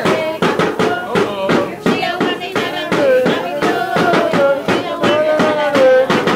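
Rhythmic clapping, about three to four claps a second, while a voice sings a tune in long held notes.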